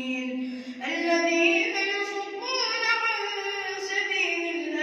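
A boy's voice reciting the Quran in the melodic tajweed style, drawing out long notes that bend up and down in pitch. There is a short break a little under a second in, and then a new phrase starts on a higher note.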